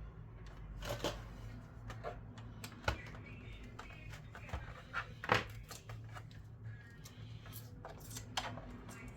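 Irregular light clicks and taps of small tools and plastic parts being handled while a game console is taken apart, the loudest about five seconds in, over a steady low hum.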